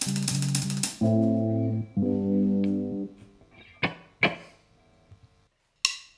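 Band playing an intro. It opens with quick cymbal strokes over a held chord, then two long sustained chords, then two sharp plucked notes. After about a second of near silence, struck notes start again near the end.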